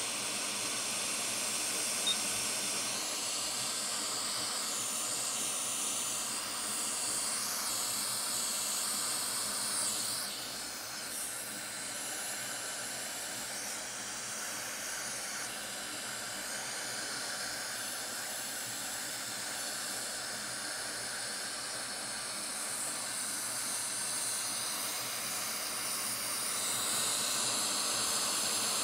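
Quick hot air rework station blowing a steady hiss of air through its nozzle while desoldering surface-mount capacitors. The hiss eases slightly about ten seconds in and grows a little brighter near the end.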